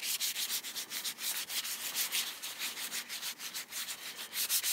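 Gloved hands rubbing metal polish into an old Stanley steel chisel, quick back-and-forth strokes several a second that make a scratchy hiss.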